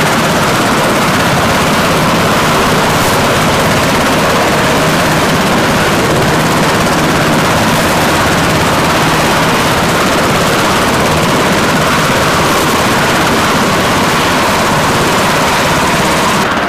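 Navy Seahawk helicopter running with its rotor turning: a loud, steady turbine-and-rotor sound with a rapid, even beat.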